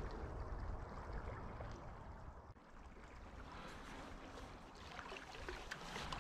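Steady, soft rush of a shallow river's flowing water, with a few faint ticks.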